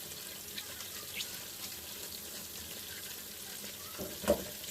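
Chicken wings frying in hot oil: a steady sizzle with scattered small crackles, and one sharp knock near the end.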